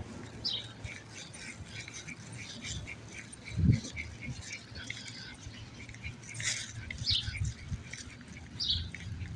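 Small birds chirping outdoors in short, scattered high calls, with a brief low thump about three and a half seconds in.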